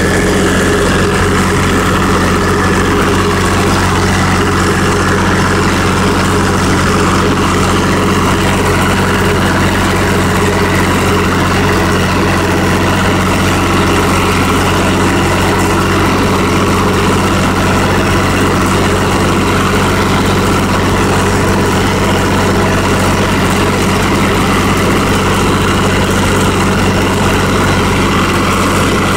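Farm tractor engine running steadily under load while pulling a hay rake, heard up close from the operator's seat: a loud, even drone that holds the same speed throughout.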